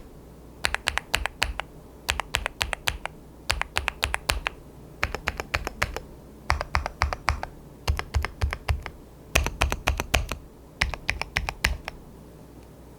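ABKO AR88 aluminium-cased custom mechanical keyboard being typed on, in short bursts of rapid keystrokes separated by brief pauses; the typing stops about a second before the end.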